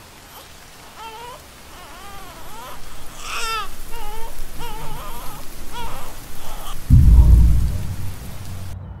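Soundtrack of a steady rain-like hiss under a voice wailing in rising and falling cries. About seven seconds in, a deep boom hit, the loudest sound, fades over about a second.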